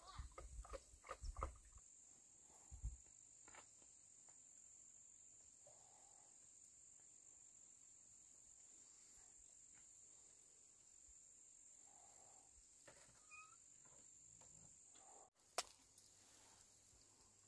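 Faint, steady high-pitched drone of insects, with a few soft knocks in the first two seconds and one sharp click shortly before the end.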